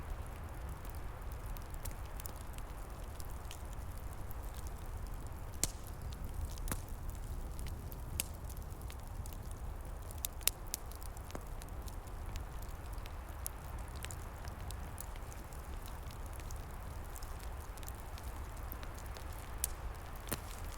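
Open wood fire crackling, with scattered sharp pops, a few of them louder, over a steady low rumble.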